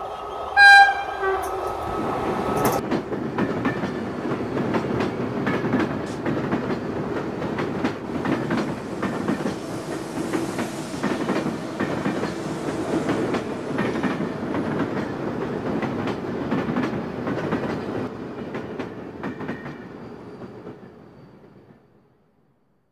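A train horn sounds for the first couple of seconds. Then a train rumbles past with its wheels clattering over the rail joints, fading away near the end.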